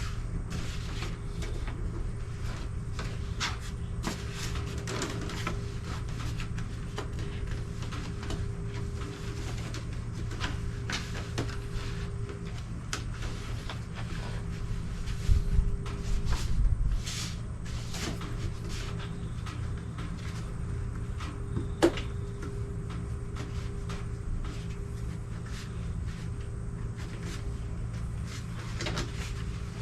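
Scattered clicks and knocks of parts being handled, over a steady low hum, with a heavier bump about fifteen seconds in and a single sharp click a few seconds later.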